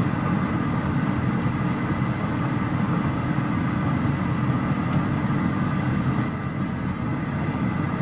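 Vehicle engine idling, heard from inside the cabin as a steady low rumble.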